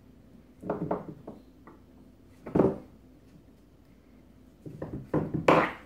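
A screwdriver knocking and clattering on a countertop as a kitten bats it about with its paw. The clatter comes in three bursts: about a second in, a sharper one at about two and a half seconds, and a longer one near the end.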